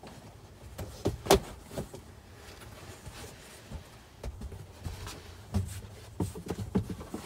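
Knocks and taps of a windshield privacy shade being fitted into a van's cab, with one sharp knock about a second in as the loudest and a run of lighter taps near the end.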